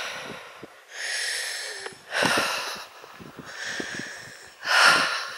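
A hiker's heavy breathing close to the microphone: a series of breaths, each swelling and fading, about one a second, while walking.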